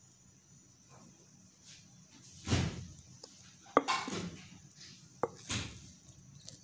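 Thick cake batter being poured from a mixing bowl into a metal baking tray, with scattered handling noises: a few soft swishing scrapes and two sharp clicks of the bowl or a utensil against the tray, the loudest click a little past the middle.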